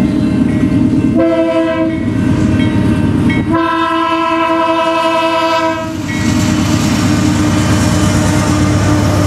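Diesel freight locomotive's air horn sounding for a grade crossing: a short blast about a second in, then a long blast of about two and a half seconds. The lead locomotive, a BNSF GE Dash 9-44CW, then passes close by, with a steady rush of engine and wheel noise.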